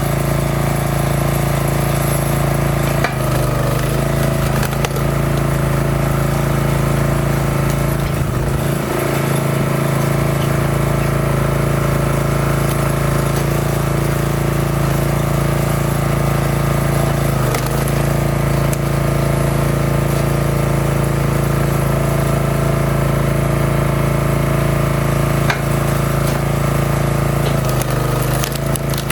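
Gasoline engine of a wood splitter running steadily; its note wavers briefly a few times.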